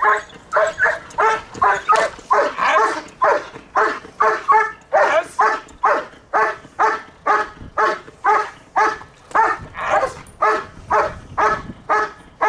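Dog barking in a steady, rhythmic run, about two to three loud barks a second.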